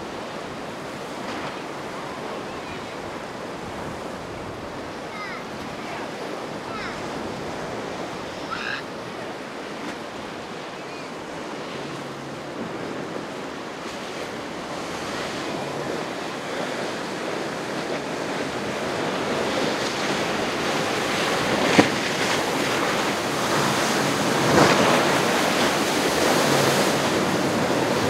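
Ocean waves washing and breaking, with wind buffeting the microphone; the rush grows louder through the second half, with two sharp slaps near the end.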